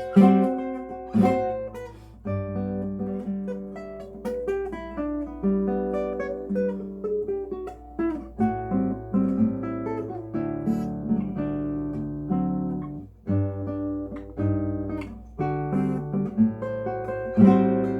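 Solo classical guitar playing a piece: plucked melody notes and chords over low bass notes, each note ringing and fading.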